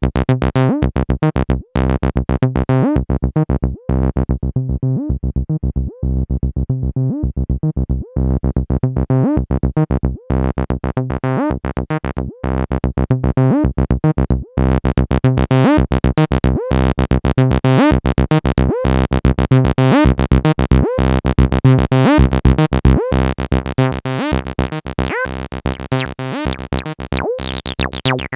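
MAM MB33 analog bass synthesizer, a TB-303 clone, playing a sequenced acid bassline of short repeated notes. The filter closes to a duller, darker tone a few seconds in. From about eight seconds in it opens again, bright and resonant, with chirps on the notes.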